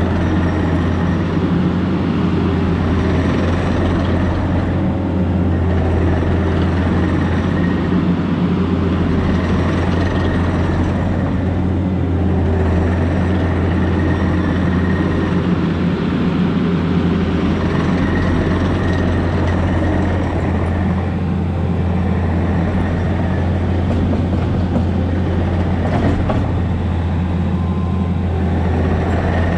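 Diesel engine of a Takeuchi compact earthmoving machine running steadily at working speed, with a faint high whine that comes and goes.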